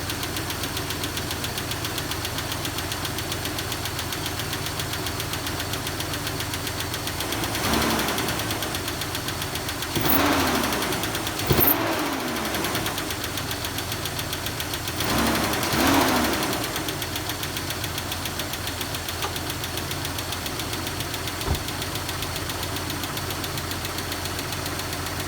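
2001 Jeep Cherokee XJ's 4.0-litre straight-six idling on a cold start with a steady lifter tick, which the owner takes for a lifter that is not yet getting oil. The engine is briefly revved a few times around the middle, rising and falling in pitch each time.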